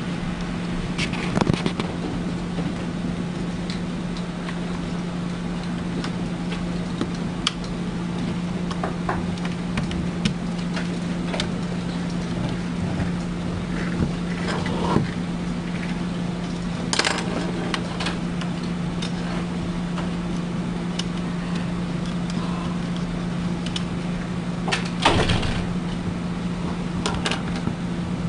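Small plastic and metal parts of a syringe pump clicking and knocking as they are handled and fitted during reassembly, in scattered single clicks with a few sharper knocks. A steady low hum runs underneath.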